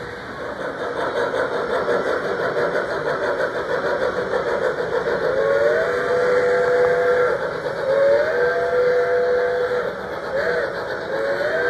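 Model steam locomotive sounding its whistle over a steady rumble of the running train: two long blasts starting about five seconds in, then a short one, then a long one beginning near the end, the long-long-short-long grade-crossing signal.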